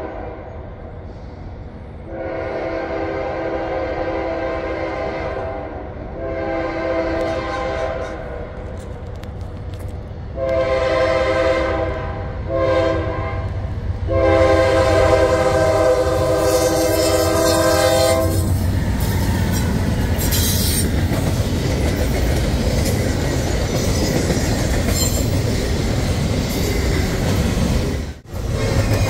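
Amtrak locomotive air horn sounding a chord in five blasts (long, then long, long, short, long), the last four matching the grade-crossing signal; then the train passes close by with a loud, steady rush of rumble and wheel clatter.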